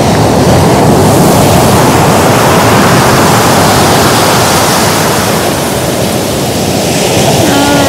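Sea surf washing steadily onto the beach, a continuous loud rushing with a slight easing about three-quarters of the way through.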